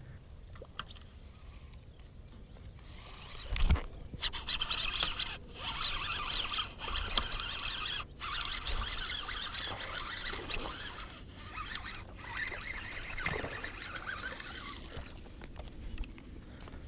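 A hooked largemouth bass reeled in on a topwater frog: a splash on the water about three and a half seconds in, then the reel winding in scratchy runs with short pauses as the fish splashes at the surface. Crickets chirp steadily under it all.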